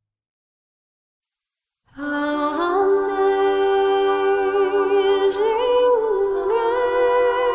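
Background music: after about two seconds of silence, a slow wordless vocal melody starts suddenly, with long held notes and vibrato.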